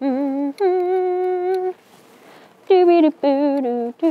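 A person humming a slow wordless tune: a short low note rising to a long held one, a pause, then a few shorter notes stepping down.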